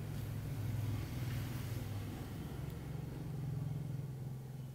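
An engine running at a low, steady speed, its pitch lifting slightly about three seconds in.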